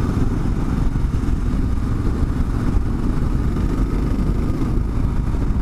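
Kawasaki KLR 650's single-cylinder engine running steadily as the bike cruises through an underpass, with wind rushing over the microphone.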